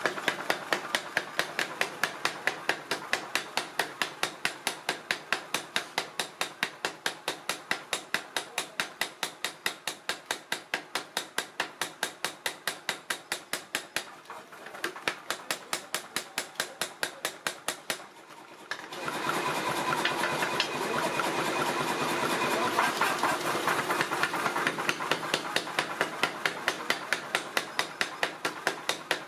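Mechanical power hammer pounding a red-hot iron blank flat into a brick trowel blade: rapid, evenly spaced blows, several a second, over the hammer's running mechanism. The blows dip briefly twice around the middle, and after that the machine's running noise is louder under the strokes.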